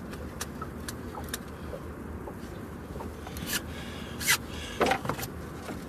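Scattered clicks and knocks from a fishing rod and reel being worked during a fight with a hooked fish, heard over a steady low rumble. The louder knocks fall in the second half.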